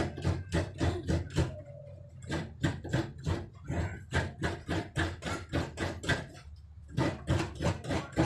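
Coconut meat being grated by hand on a bench-mounted serrated grater (kudkuran): quick rhythmic scraping strokes, about four a second, pausing briefly twice.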